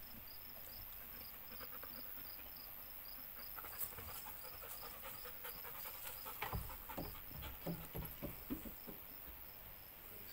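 Dog panting. A faint high chirp repeats evenly about three times a second throughout, and a run of quick clicks and short strokes comes in the second half.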